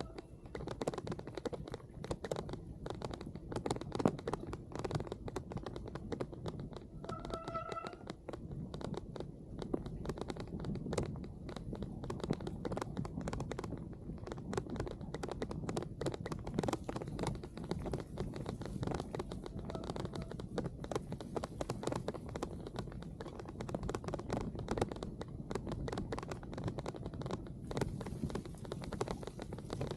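Continuous scratchy, crackling noise from a bicycle ride in the rain, full of fine ticks and rattles, with a brief squeak about a quarter of the way in.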